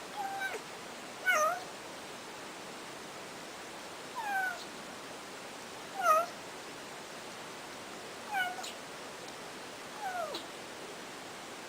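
A cat meowing six times, short calls a second or more apart, each falling in pitch, over a steady background hiss.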